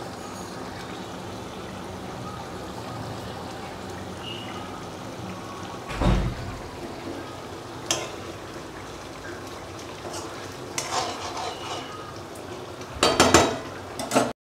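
Lentil-fritter batter frying in hot oil in an aluminium kadai, a steady sizzle. Metal utensils knock against the pots, once loudly about six seconds in and again just before eight seconds, then clatter several times near the end.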